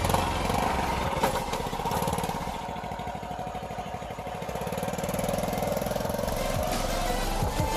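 A small engine running, its speed sagging and then picking up again near the end.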